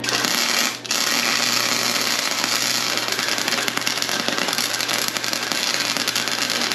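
Flux-core arc welding with .030 Harbor Freight Vulcan self-shielded wire: a steady, loud crackle that breaks off briefly about a second in and then runs on. The wire is stubbing at the start of the bead rather than running smoothly.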